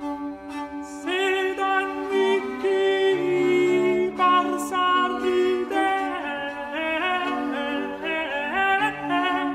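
Late-medieval polyphonic chanson: a singer enters about a second in with a wavering, gliding voice over sustained lines of bowed string instruments, several parts moving at once.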